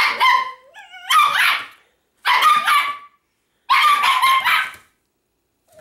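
Italian Greyhounds barking in four short, high-pitched bouts about a second apart, with a brief whine between the first two, which the owner takes for happy excitement.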